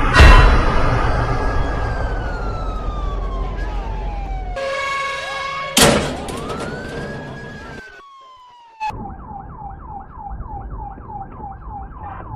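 Police car siren: a slow wail falling in pitch, broken by two loud sharp knocks, one right at the start and one about six seconds in. After a brief drop-out, the siren switches to a fast yelp cycling about three to four times a second.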